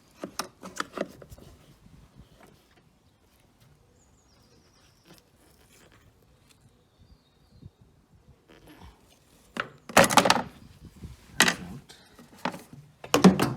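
Hands unclipping a sensor and its plastic connector and mounting clips in a car's engine bay. There are scattered clicks and rattles at first, then three loud plastic clatters and scrapes in the last few seconds.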